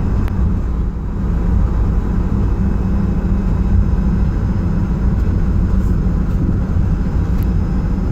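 Steady low rumble of a van driving, engine and road noise heard from inside the cab, with a few faint ticks or rattles.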